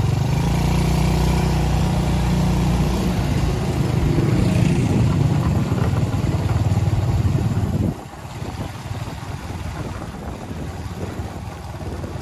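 An engine running steadily, then cutting off or fading abruptly about eight seconds in, leaving a quieter rushing noise.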